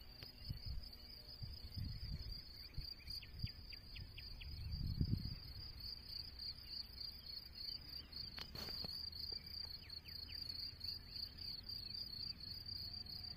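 Crickets chirring in a steady, pulsing high trill throughout, over a gusty low rumble that is strongest about five seconds in. A brief sharp click comes near the middle.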